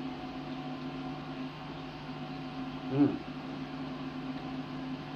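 Steady low electrical hum of an old videotape recording, with one short voiced sound, a brief rising-and-falling murmur, about three seconds in.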